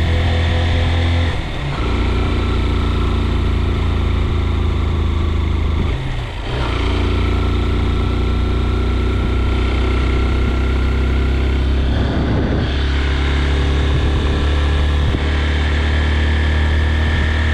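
A vehicle engine running under steady load. Its pitch changes about a second and a half in, around six seconds in and again around twelve seconds in, with brief dips in level at the first two changes, like gear changes on a climb.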